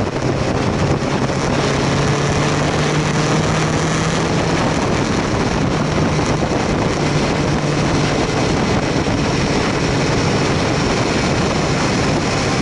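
BMW S1000R's inline-four engine running at a steady road speed, mixed with heavy wind rush and road noise on the bike's flank.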